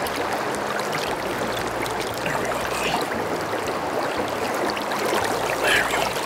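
Shallow stream water running and trickling over rocks, with light splashing as a trout is released by hand into the current.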